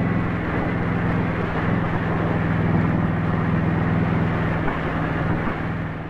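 Indian Scout motorcycle's V-twin engine running at a steady road speed, with wind noise over it.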